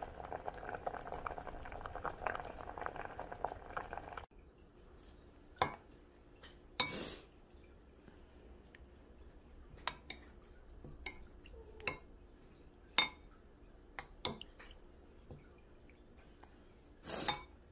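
Dumplings boiling in a steel pot, a dense crackling bubble that cuts off about four seconds in. After that a metal spoon clinks and scrapes against a ceramic soup bowl every second or so, with two longer scrapes.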